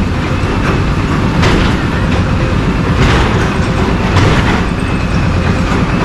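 Hydraulic excavator working on a house demolition: its diesel engine rumbles steadily, with a few sharp crunches of broken concrete and debris about 1.5, 3 and 4 seconds in.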